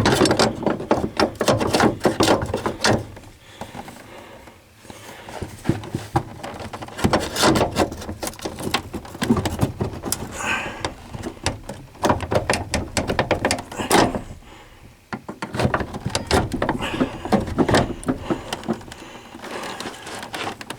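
Clatter of metal on metal as a worn door hinge is wrestled loose from a Ford F250 door: irregular knocks, clicks and scrapes in bursts, with quieter spells about four and fifteen seconds in.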